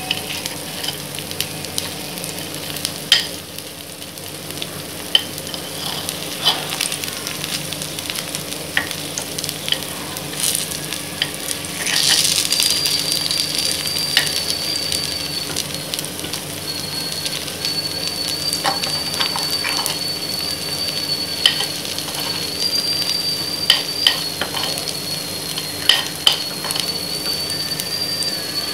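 Kuzhi paniyaram batter frying in oil in the wells of a paniyaram pan, sizzling steadily. Sharp clicks of a metal spoon against the pan come every second or so as the dumplings are turned over. A thin high whistle joins about twelve seconds in.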